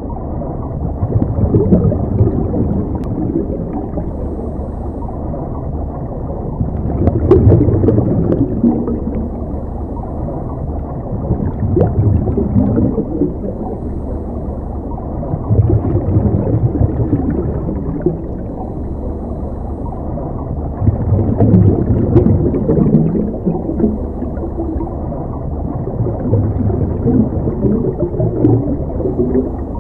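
Muffled underwater rumble and gurgle of a scuba diver's regulator breathing, swelling into a bubbling surge every four to five seconds as each breath is exhaled.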